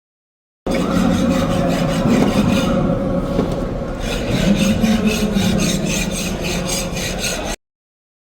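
Rhythmic scraping or rasping, about five strokes a second, which starts and stops abruptly.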